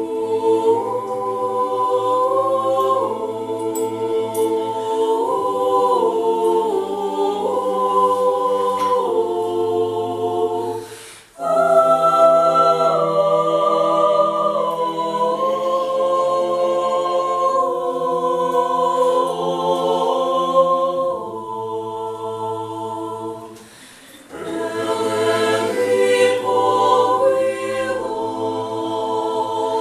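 Small mixed choir of women's and men's voices singing unaccompanied, in held chords that move together, with two short pauses between phrases, about eleven and twenty-four seconds in.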